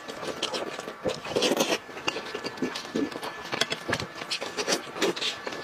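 Close-miked eating sounds: wet chewing, lip smacks and clicks as braised meat is eaten off the bone, coming in quick, irregular bursts, mixed with the tearing and pulling of meat in gloved hands.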